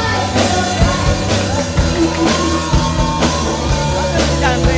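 Live rock band playing with a singer over a steady drum beat, a long note held through the middle.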